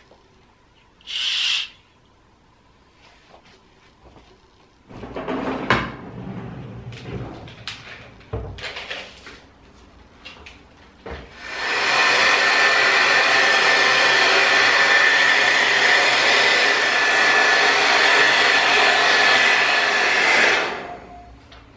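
Handheld hair dryer blowing steadily for about nine seconds, switched on a little past halfway and cut off shortly before the end. Before it come a few scattered knocks and rustles.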